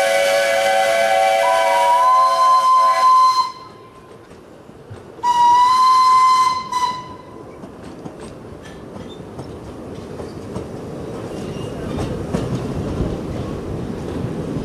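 Narrow-gauge steam locomotive whistles: a low whistle of several tones joined by a higher one about a second and a half in, both stopping together at about three and a half seconds, then a single higher whistle of about a second and a half. After that, the train's wheels rumble and click over the rail joints, growing a little louder near the end.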